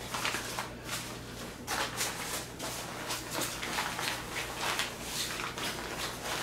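Nylon inflatable sleeping pad rustling in repeated swishes as it is rolled up tightly by hand, with the remaining air hissing out as it is pressed from the pad.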